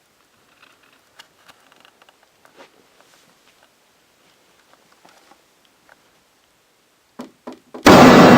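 Faint scattered clicks and rustling, then two quick knocks about seven seconds in. Just before the end comes a sudden, very loud dramatic music hit that keeps ringing.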